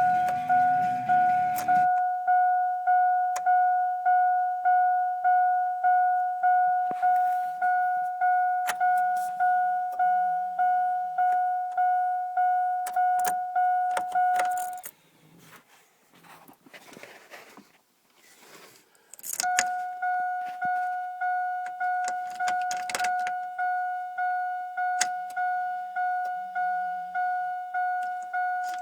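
Chevrolet Silverado's warning chime dinging repeatedly on one pitch, about one and a half dings a second, each fading quickly. It stops for about four seconds midway, leaving only faint clicks, then starts again.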